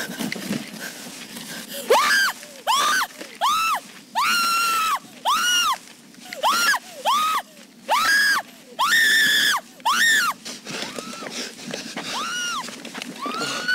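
A woman screaming over and over: about a dozen high, piercing screams, each rising and falling in pitch, some short and some drawn out, starting about two seconds in. Before them, rustling and footsteps from running through undergrowth.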